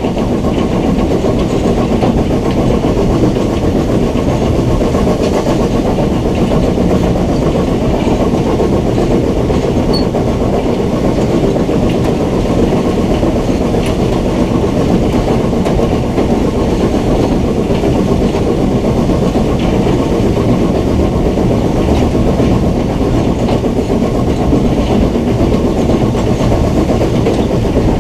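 BR Standard Class 9F 2-10-0 steam locomotive on the move, heard from its cab: a steady, loud rumble and rattle of the engine and its wheels on the rails.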